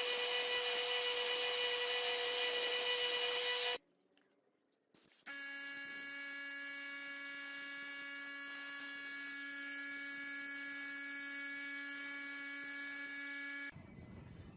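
Small electric motor of a restored cutting machine running at a steady whine. It stops abruptly about four seconds in, then runs again about a second later at a lower pitch until near the end.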